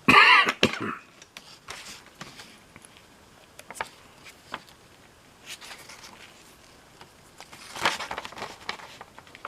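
Light clicks and rustles of a small relay and test-meter probes being handled on a workbench, with a brief louder sound right at the start and a short burst of handling noise near the end.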